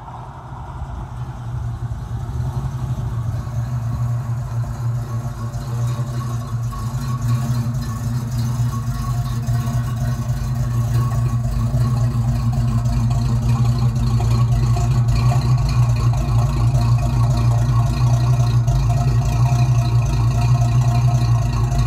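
Ford 351 Cleveland V8 running at low revs through dual Flowmaster Super 44 mufflers: a steady, deep exhaust rumble that grows gradually louder as the car comes close, ending right behind the tailpipes.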